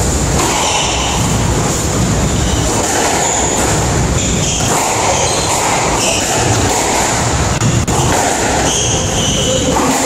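Loud, steady rumbling background noise with a constant hiss and scattered higher-pitched squeaks.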